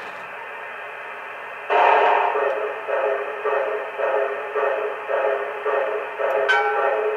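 Proto-Sound 1 effects from the standing MTH Camelback steam locomotive's small onboard speaker, thin and tinny. A faint hum gives way, a little under two seconds in, to a rhythmic pulsing of about two beats a second. Near the end a pitched signal sound joins in.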